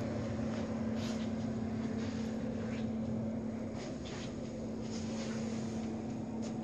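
A steady mechanical hum holding one constant low tone, with a few faint rustles and clicks over it.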